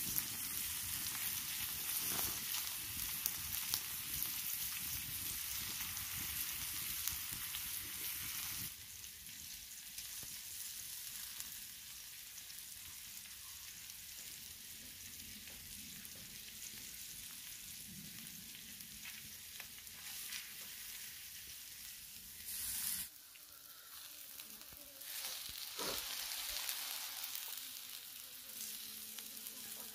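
Beefsteak and tomato slices sizzling on a flat, fire-heated stone slab, a steady frying hiss. It gets quieter after about nine seconds, dips briefly near the end and then picks up again.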